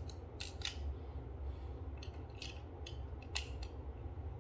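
A small screwdriver turning a screw into the plastic housing of a foaming soap dispenser: a string of irregular, sharp clicks as the tip works the screw head. A steady low hum sits underneath.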